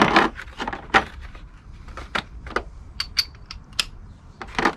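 Metal hand tools clinking and clicking as an extension bar and socket are handled and fitted: an irregular run of sharp metallic clicks, some with a brief ringing, louder at the start and again near the end.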